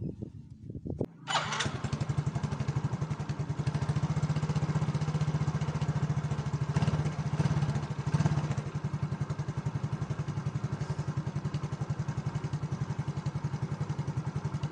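Rubber inner tube made to give off a loud, rapid pulsing buzz that starts about a second in and holds steady, after a few knocks as it is handled.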